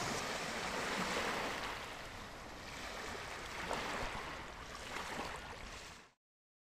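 Steady rushing outdoor noise with no clear voices or tones, cutting off abruptly about six seconds in to dead silence.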